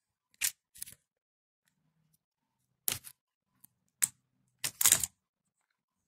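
A handful of short, sharp metallic clicks and knocks at irregular intervals, a socket wrench working against the hub spacer and ball bearing of a kick-scooter wheel to push the worn bearing out. The busiest cluster of knocks comes near the end.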